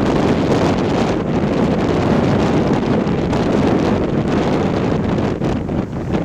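Strong wind buffeting the microphone in a steady, heavy rumble, with surf breaking on the shore underneath.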